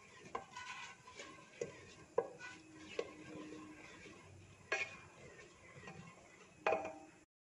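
A ladle stirring thick mashed moong dal in a pressure cooker, with a few light knocks and scrapes against the pot's sides.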